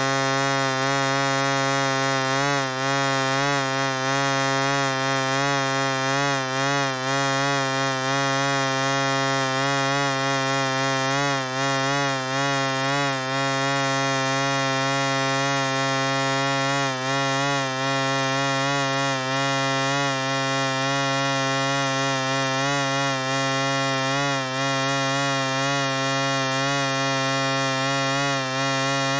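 Housefly buzzing in flight: a steady, loud wingbeat drone whose pitch wavers slightly up and down without a break.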